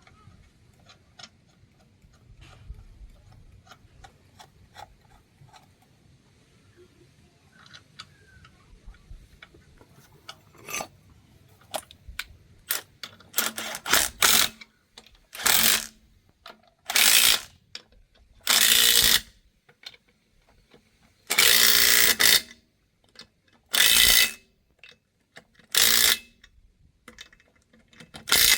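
Impact wrench on wheel nuts, running in about nine short bursts from about halfway through. The first half is quieter, with faint scattered ticks and clicks.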